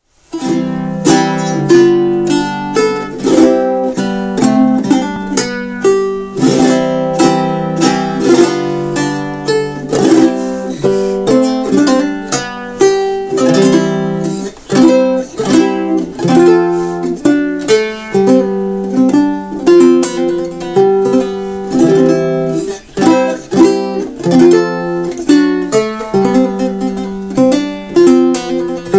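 Baroque guitar played solo: a chaconne, strummed chords alternating with plucked single-note passages in a steady triple-time pulse.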